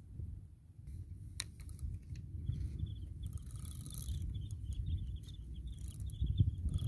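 Wind buffeting the microphone as a steady low rumble, with a rapid run of short high chirps starting about two and a half seconds in.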